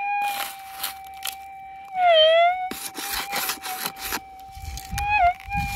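Metal detector's steady threshold tone, which bends down in pitch and gets louder about two seconds in and again briefly near the end as a target is swept past the coil. Between them, a scoop scrapes and rattles through loose dirt.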